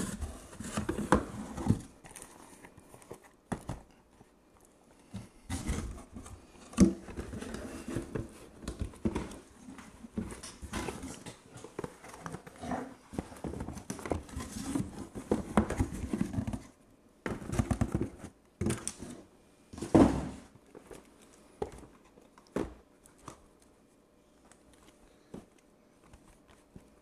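Shrink-wrapped cardboard trading-card boxes being handled and set down in stacks: scattered knocks and plastic crinkling, with a sharper knock about seven seconds in and another about twenty seconds in. The last several seconds are mostly quiet.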